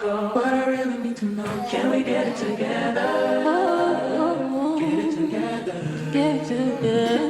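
Vocal music: several voices singing together in harmony, a cappella style, with held and wavering notes.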